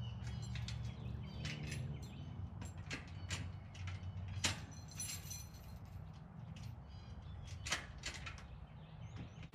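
Scattered metal clanks and knocks from hands working at a boat trailer's hitch, about ten over several seconds, the sharpest about halfway through, over a steady low outdoor rumble. A bird chirps a few times near the start.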